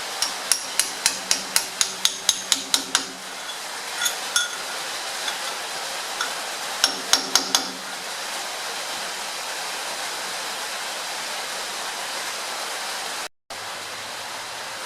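Hammer striking a steel shim-driving tool to drive the side shims in beside the differential carrier of a GM 10-bolt 7.5-inch rear end: a quick run of about a dozen ringing metal blows at roughly four a second, two more, then a burst of four. A steady hiss runs underneath.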